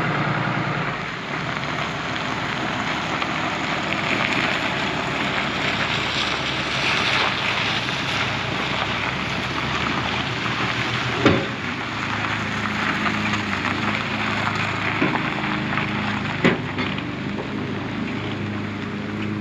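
A motor running steadily under a heavy rush of wind, with two sharp knocks, one about halfway through and one later.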